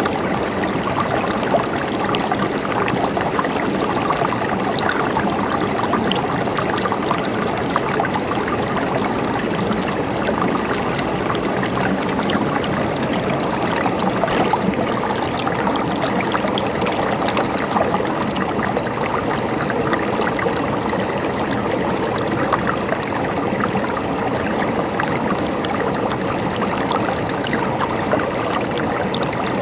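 Running water, a steady, unbroken trickling and babbling.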